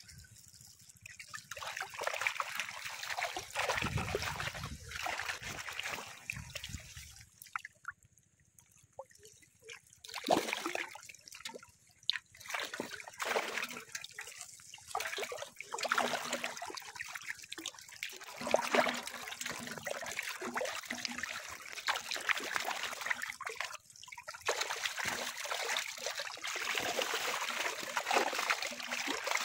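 Muddy water splashing and trickling in irregular bursts as a netful of fish thrash in the shallows, with a brief lull about eight seconds in.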